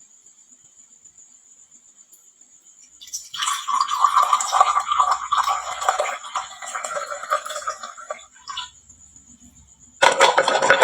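Many glass marbles clattering down a wooden marble-run slope, a dense rattle of small clicks that starts about three seconds in and dies away after about five seconds. A steady high-pitched tone sounds underneath, and a louder sound cuts in abruptly near the end.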